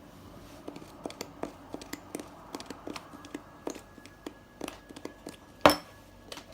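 Light clicks and taps of hands handling a plastic bottle of body lotion, which will not squeeze out, with one sharp, louder click near the end.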